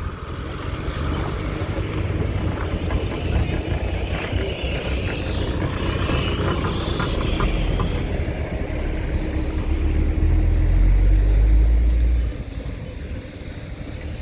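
Motor vehicle driving past close by, a steady rumble of engine and road noise that is loudest about ten to twelve seconds in and then falls away sharply.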